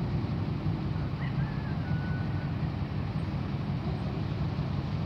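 Mobile crane's diesel engine running steadily with a low, even rumble while it holds a load on its hook.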